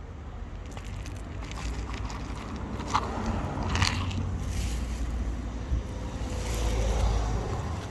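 Low wind rumble on the microphone, with a few scattered crunching clicks.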